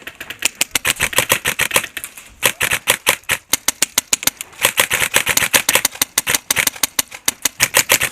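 Airsoft guns firing on full auto: long strings of rapid snapping shots, many a second, with short breaks a little over two seconds in and again about a second later.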